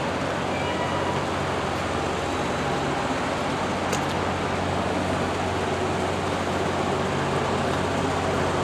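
Steady city street noise: a traffic hum with a low, even engine drone under it. One brief sharp click about four seconds in.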